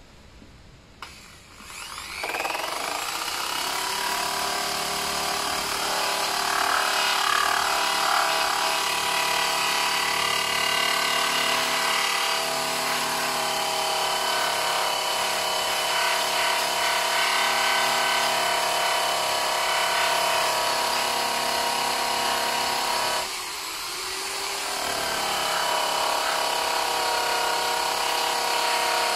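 Drill spinning a purple abrasive strip disc against the rusty sheet-metal lip of a car's wheel arch, stripping rust. The motor spins up about two seconds in and runs with a steady whine, slows and dips briefly near the 23-second mark, then picks back up.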